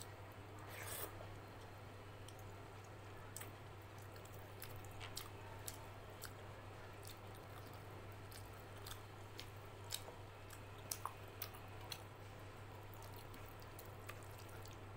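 Close-up eating sounds: a hand mixing rice with chicken curry on a steel plate makes soft wet squishing, with chewing and scattered sharp clicks throughout.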